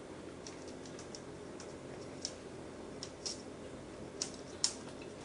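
A cat pawing at a kitchen drawer and moving on the hard floor: scattered light clicks and taps, the sharpest a little before the end, over a steady low background hum.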